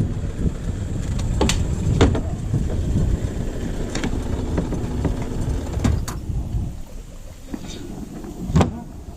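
Small boat under way on a 9.9 hp outboard: a low rumble of motor and wind noise, crossed by several sharp knocks, the loudest near the end. The rumble eases about two-thirds of the way through.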